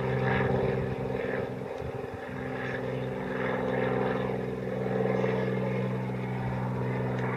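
Cessna light aircraft's piston engine and propeller running with a steady drone.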